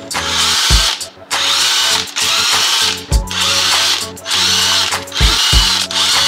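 Cordless impact driver hammering in repeated bursts about a second long, each opening with a rising whir, as it breaks loose the cylinder head bolts on a Toyota 4A-GE engine.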